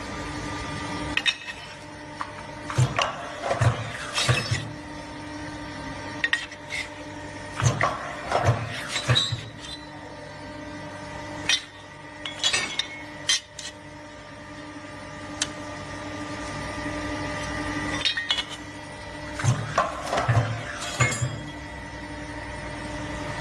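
Hydraulic punch-and-shear machine running, its pump giving a steady hum, with repeated sharp metallic clinks and cracks at irregular intervals as steel is punched and cut.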